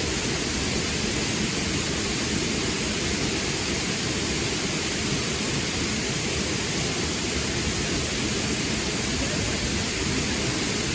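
Steady rushing of a river's flowing water, an even wash of noise without change.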